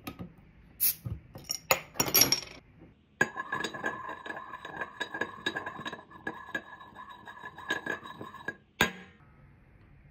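A few sharp clicks as a beer bottle is opened, then a drinking glass held on the bottle's glass mouth rattles and rings with a steady tone for about five seconds. It ends in one sharp clink of glass on glass, after which the beer foams up.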